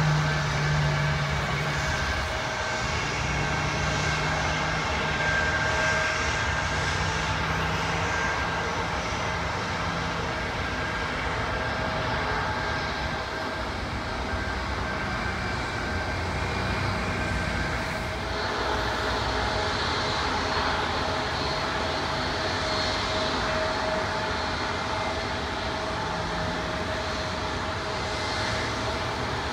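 Steady whine of taxiing jet airliners' engines mixed with the rush of highway traffic close by. The rushing noise grows louder about eighteen seconds in.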